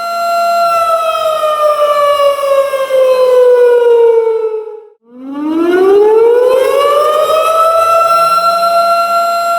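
Tornado warning siren wailing on a steady pitch, then winding down, its pitch falling for about four seconds until it almost dies out midway. It winds straight back up to the steady wail near the end.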